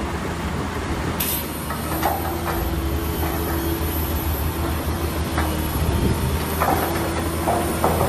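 Heavy diesel earthmoving machinery running steadily, with a held whine over the engine drone and irregular metallic clanks and scrapes of rock being pushed or dumped.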